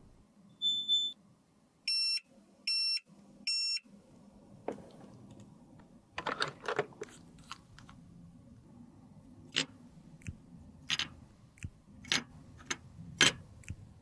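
A mini beauty fridge's control panel beeps: one longer tone, then three short beeps. Later come a series of sharp clicks and taps as lipstick tubes are handled and fitted together.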